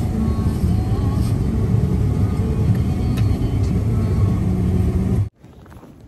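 Car driving on a snow-covered road, heard from inside the cabin: a steady low rumble of engine and tyres. It cuts off suddenly about five seconds in, leaving a much quieter background.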